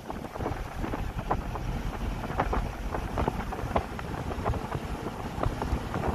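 Wind buffeting the microphone over the low rumble of a moving vehicle on the road, with scattered light clicks and rattles.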